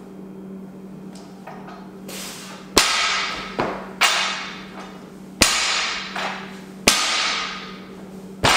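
Loaded barbell with iron plates being set down on a wooden lifting platform between deadlift reps. There are five heavy clanks about every one and a half seconds, each with a metallic ring, and lighter knocks between a couple of them.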